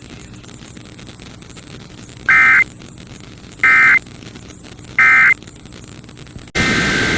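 Emergency Alert System end-of-message signal: three short bursts of warbling SAME digital data tones, about a second apart, over faint radio hiss. About six and a half seconds in, it cuts abruptly to loud static, and another data burst begins.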